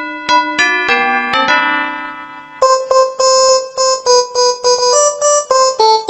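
Keyboard music: a melody of short, plucky struck notes, with a quick run of notes about a second in and evenly repeated notes after that.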